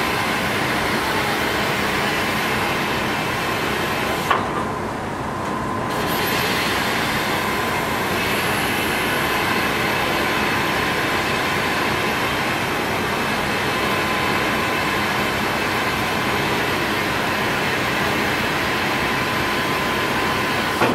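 Tako Ferry car ferry under way: a steady drone of its engines with rushing water from the wake along the hull, and a faint steady whine running through it. About four seconds in there is a click, and the hiss turns duller for about two seconds.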